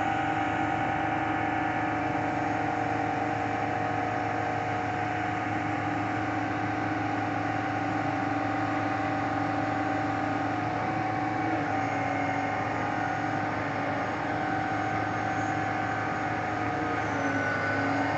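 Truck-mounted SANY concrete pump's diesel engine running steadily while its hydraulic boom unfolds: a constant drone with a few steady tones that shift slightly in pitch about halfway through and again near the end.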